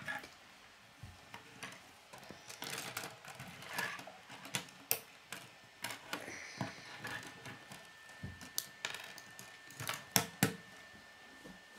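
K'nex plastic rods and connectors clicking and snapping together by hand, with irregular light clicks and knocks of loose pieces against the table; the sharpest pair of clicks comes near the end.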